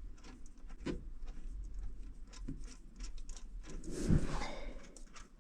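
Small metal clicks as a nut and washer are threaded down onto a toilet closet bolt and snugged against the base, with a louder knock about four seconds in.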